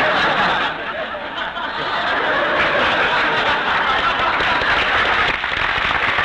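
Live studio audience laughing and applauding after a punchline, a long unbroken wave of laughter and clapping. It has the narrow, muffled sound of an old radio broadcast recording.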